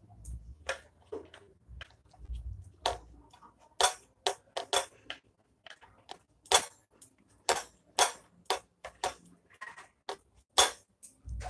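Irregular light taps and clicks as fingers press and pat a lentil mixture flat on a ceramic plate.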